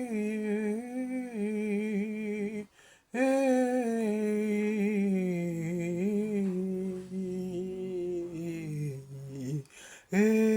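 A lone voice humming a slow, wordless worship melody with held, wavering notes, pausing for breath about three seconds in and again near the end, and sinking lower in pitch during the second half.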